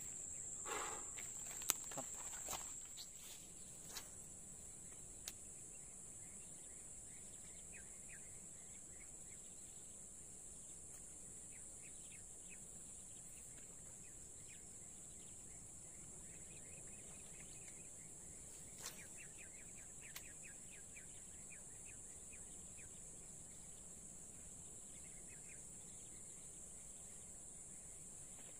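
Steady high-pitched insect drone over quiet rural ambience, with faint bird twitters every few seconds. A few light clicks come in the first few seconds and again about two-thirds of the way through.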